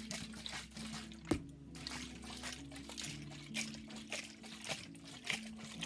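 Canned Clamato Caesar cocktail being poured and sloshed into a glass: irregular splashes and drips, with one sharper knock about a second in.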